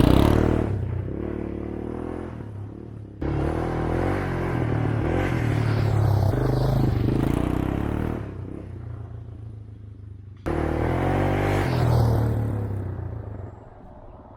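Single-cylinder motorcycle engine running under way, its revs and loudness swelling and easing, with sudden jumps louder twice, about three and ten seconds in.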